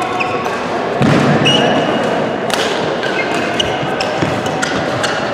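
Badminton rally in a large sports hall: sharp, irregular racket strikes on the shuttlecock and quick footfalls, with several short squeaks of court shoes on the floor, over a background of play and voices from neighbouring courts.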